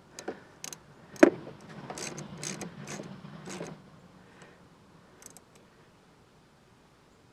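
Clicks and knocks of a plastic battery terminal cover being fitted back over the terminal and tools being handled, with one sharp knock about a second in and a light rattle after it, dying away after about four seconds.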